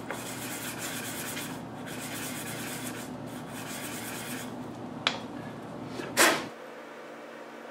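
Blade bushing held in a metal pivot lap, rubbed in circles on 220-grit abrasive paper over a glass plate: a steady gritty scraping. Near the middle the rubbing stops, followed by two sharp clacks of metal on the glass, the second louder, then only a faint hiss.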